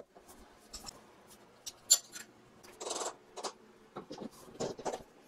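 Bar clamp being set and tightened on the edge of a wooden tabletop: scattered light metal clicks and knocks, one sharp click about two seconds in, and a short scrape about three seconds in.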